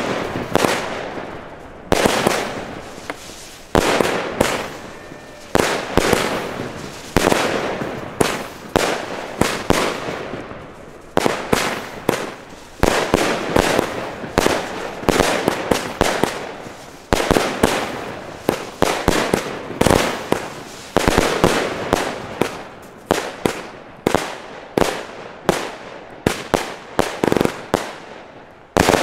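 Two consumer fireworks batteries (cakes) firing together: shot after shot bursting every second or so, each sharp bang fading off, with smaller reports in between.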